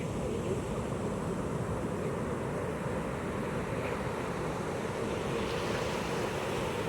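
Pacific ocean surf on a beach: a continuous rush of breaking and washing waves, growing brighter and hissier near the end as another wave washes in.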